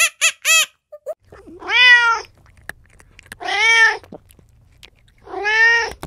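Domestic cat meowing three times, each call about two-thirds of a second long and rising then falling in pitch. It is preceded by a short run of quick high squeaks that stops within the first second.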